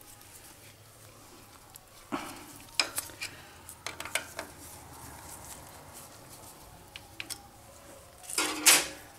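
Scattered metal clicks and clinks of a T-handle hex key and small steel parts being worked on a lathe's cross slide, with a louder metallic scrape and rattle near the end.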